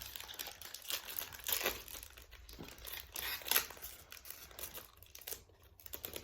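Foil wrapper of a Yu-Gi-Oh! booster pack being crinkled and torn open by hand: a run of irregular crackles, sharpest about three and a half seconds in.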